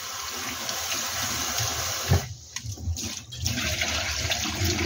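Cold tap water running hard into a plastic bowl of cooked noodles in a stainless-steel sink as hands rub the noodles to rinse them. About two seconds in there is a dull knock and the flow stops, then water pours again as the bowl is tipped to drain over its rim into the sink.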